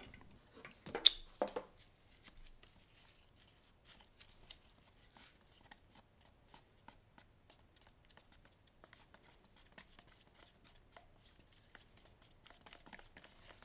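A wooden stir stick stirring thinned polyurethane paint in a plastic mixing cup: faint, irregular ticks and scrapes as the stick knocks the cup, with one sharper click about a second in.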